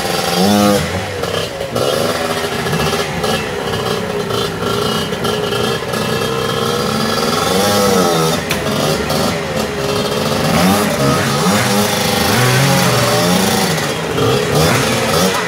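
Enduro dirt bike engine revving up and down over and over as the bike is worked over boulders under heavy load, the pitch rising and falling with each blip of the throttle.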